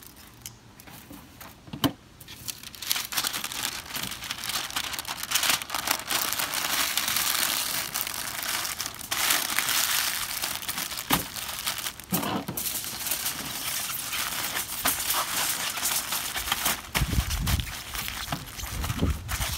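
Parchment paper and aluminium foil crinkling and crumpling as a smoked turkey leg is wrapped up by hand. The wrapping starts about two seconds in, and a few dull low bumps follow near the end.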